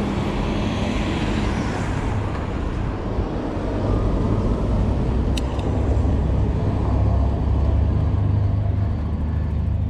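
Riding noise from a Cyrusher Ranger fat-tyre e-bike: a steady low rumble of wind on the microphone and the fat tyres rolling, over tarmac and then block paving, with road traffic alongside near the start. One sharp click about five and a half seconds in.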